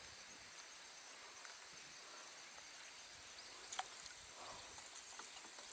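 Very quiet outdoor ambience with a faint, steady high insect hum, broken by a single sharp click a little under four seconds in.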